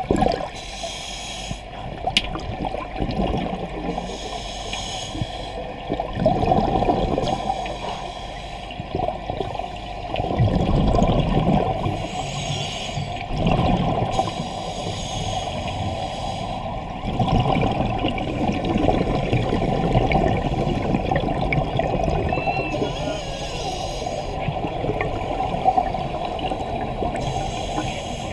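Scuba regulator breathing heard underwater: a hissing inhale through the regulator alternating with the bubbling rush of exhaled air, repeating every few seconds.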